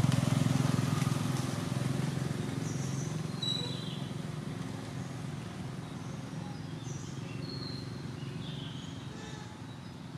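A motor vehicle's engine running with a steady low hum that fades gradually as it moves away. Short high bird chirps come in over it from a couple of seconds in.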